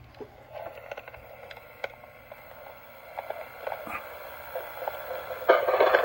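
Recorded tape audio coming out of the Panasonic PV-A306 camcorder's small built-in speaker during playback: faint clicks and hiss from the recording, growing louder as the playback volume is turned up, with a sudden jump in level about five and a half seconds in.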